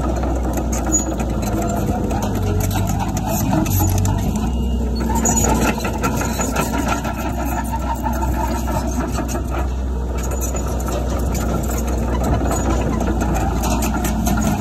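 Diesel engine of heavy earthmoving machinery running steadily, with a low hum and a busy rattle over it. Its note shifts briefly between about two and four seconds in.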